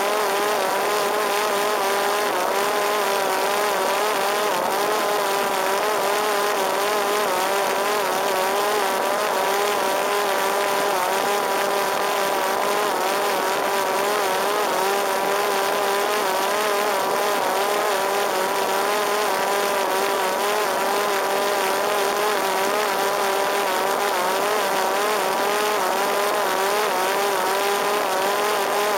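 Parrot Disco fixed-wing drone's electric motor and pusher propeller running steadily in flight, a constant whine that wavers slightly in pitch, over a steady rush of air.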